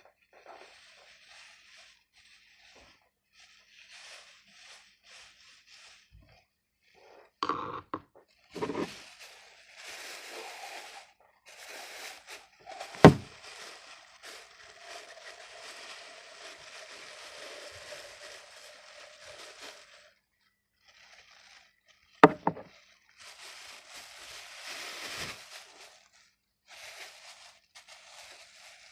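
Hands working craft materials: scraping, crackling rustles in bursts of a second or several seconds. Two sharp knocks stand out, one about halfway through (the loudest sound) and another later on.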